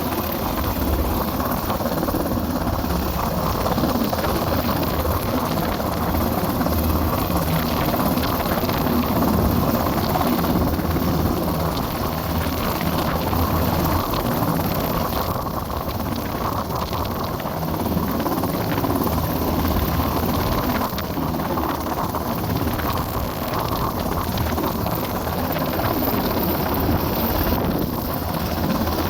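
U.S. Coast Guard rescue helicopter hovering overhead, its rotor and engine noise running steadily, mixed with strong wind.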